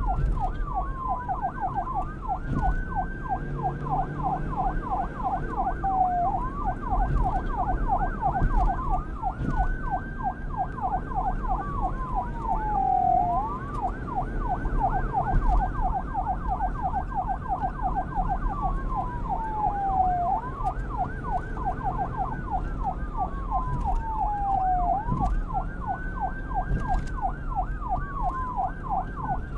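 Police car sirens: a rapid yelp sweeping up and down several times a second, with a slower wail over it that rises quickly and falls off every few seconds, above a low rumble of wind and traffic.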